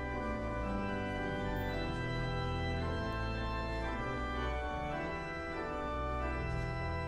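Organ music: slow, held chords that change every second or so, at an even level.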